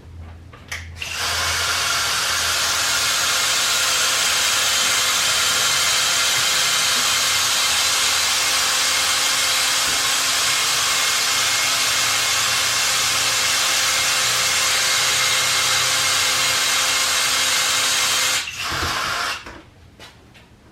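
Battery-powered caulking gun's electric motor running steadily under load, driving moldable packing material into a packing gland. It starts about a second in and stops near the end.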